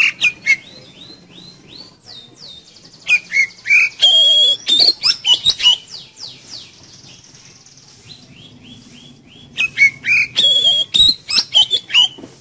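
Oriental magpie-robin singing: loud spells of rapid, sliding whistles and sharp notes at the start, from about three to six seconds in, and again from about ten seconds to near the end, with softer runs of short repeated notes between.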